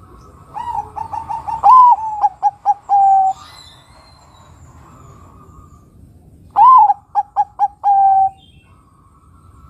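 Zebra dove (perkutut, Bangkok type) cooing two song phrases a few seconds apart. The first begins with soft short notes, then a loud bent note, a quick run of short clipped notes and a held note. The second phrase is shorter: a loud note, four quick notes and a held note.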